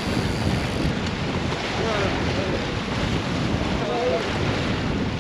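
Steady wind buffeting the microphone over the wash of sea water, with faint voices in the background.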